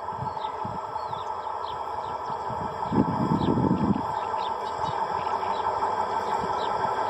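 Small birds chirping again and again over a steady hum, with a gust of wind buffeting the microphone about three seconds in.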